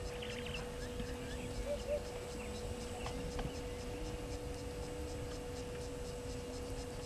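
Outdoor bush ambience: a low, steady rumble with a steady hum over it, and a few faint chirps scattered through.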